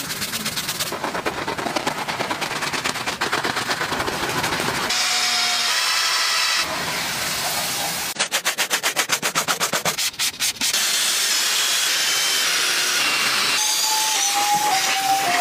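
Hissing spray of car-cleaning foam and water across several short clips that cut abruptly from one to the next, with a stretch of rapid, even pulsing near the middle. Near the end a simple tune of falling notes comes in over the hiss.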